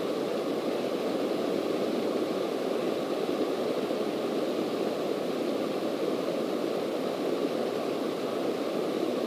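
Steady cabin noise of a Cessna single-engine light plane in flight: the piston engine and propeller running, with a constant rushing of air.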